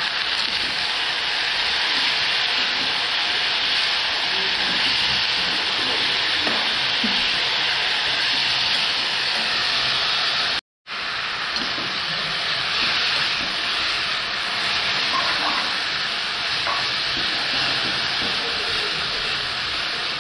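Food sizzling steadily in hot oil in a pan, a constant frying hiss that breaks off into silence for a moment about halfway through.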